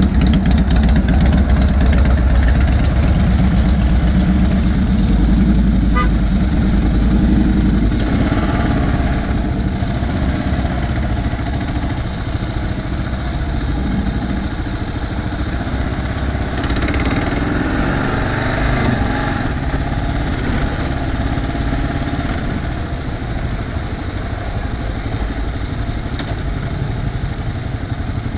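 Kawasaki KLR650's single-cylinder engine running at low speed as the motorcycle creeps along in traffic, heavier and louder for the first several seconds, then quieter.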